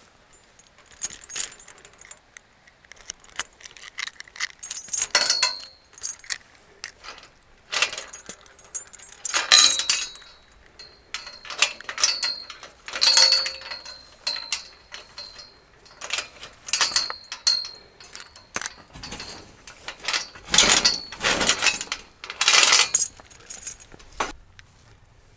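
A metal chain rattling and clinking against a galvanised steel field gate as it is unfastened from the wooden gatepost, with clanks from the gate. The rattles come in bursts, and the sharper hits leave a short metallic ring.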